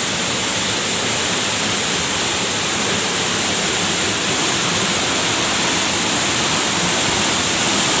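Small waterfall pouring into a plunge pool: a steady rush of falling water.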